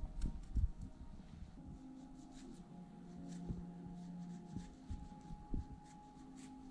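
Knife slicing through San Pedro cactus on a wooden cutting board: scattered soft cuts, crisp clicks and light taps of the blade on the board. Soft background music with long held notes plays underneath.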